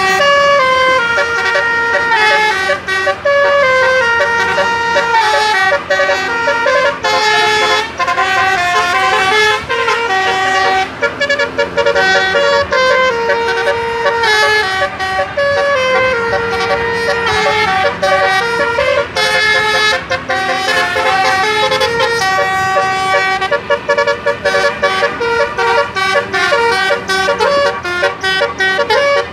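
Indonesian bus telolet horn, a multi-trumpet musical air horn, playing a long tune of quick notes that step up and down, with short breaks between phrases.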